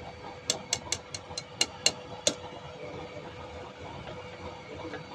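A quick string of about eight sharp knocks, each with a brief ring, over a steady background hum.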